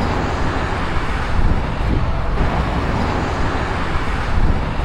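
Riding on a motorcycle: steady engine and road noise with wind rushing over the microphone.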